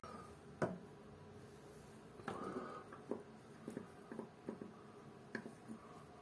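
Faint scattered clicks and light knocks of a 30 mm spanner on a mixer tap's cartridge nut as it is tightened, with a brief scrape about two and a half seconds in.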